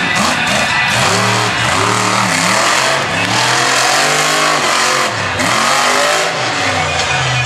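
Monster truck engine revving up and down several times under hard throttle as the truck drives and turns on a dirt arena floor.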